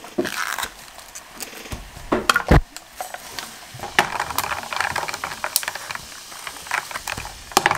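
Ice cubes dropped into a glass jug of freshly mixed sparkling lingonberry drink and stirred, clinking and knocking against the glass over the fizz of the mineral water. The loudest knocks come in a cluster a little over two seconds in.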